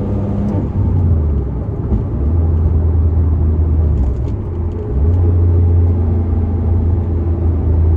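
Porsche Cayman S flat-six engine driving along, a steady low drone with road noise on top; the engine note changes about two seconds in and again about five seconds in.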